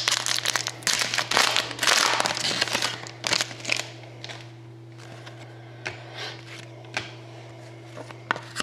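A foil trading-card pack (Panini Crown Royale hockey) being torn open, with dense crinkling for the first three or four seconds, then quieter scattered clicks and rustles as the cards are handled. A steady low hum runs underneath.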